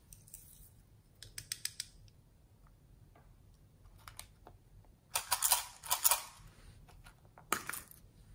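Small plastic containers being handled: a quick run of sharp plastic clicks, then a louder rattling clatter about five seconds in and a shorter one near the end, as a backpack-shaped snap-lid plastic case holding loose sequins is opened.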